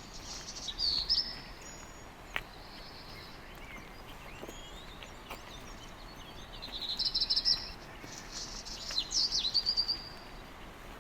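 A songbird singing in short bursts of rapid, high chirps and trills, about four phrases, over a steady background hiss, with one sharp click a little over two seconds in.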